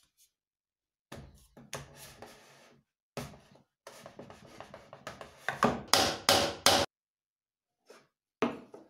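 Wooden blocks handled and fitted together on a workbench: rubbing and scraping of wood on wood in short bursts, then a run of sharp wooden knocks, the loudest about six seconds in, and a couple of brief knocks near the end.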